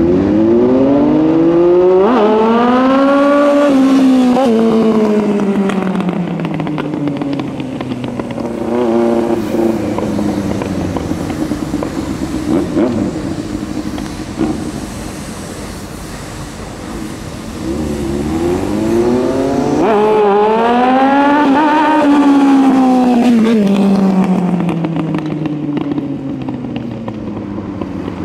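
Vehicle engine running, its pitch rising and then slowly falling twice: once over the first few seconds and again about two-thirds of the way through, with lower, steadier running in between.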